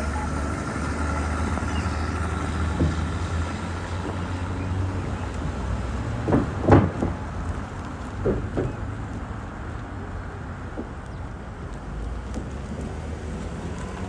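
City street traffic with a car engine running steadily, easing off after about five seconds as the 1940s Rolls-Royce drives away. A few sharp thumps stand out about six and a half seconds in, the loudest moment, and two more follow about two seconds later.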